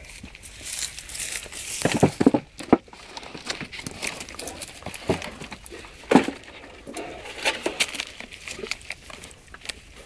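Great Danes tearing up and chewing grass, an irregular rustling and crunching with the loudest crunches about two seconds and six seconds in.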